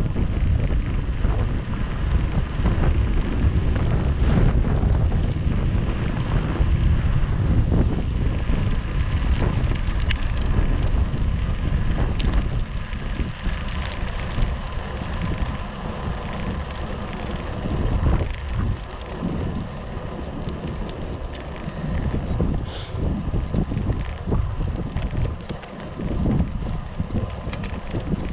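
Wind buffeting the microphone of a camera on a moving bicycle, with a steady rumble of tyres on rough tarmac. The rumble eases about halfway through.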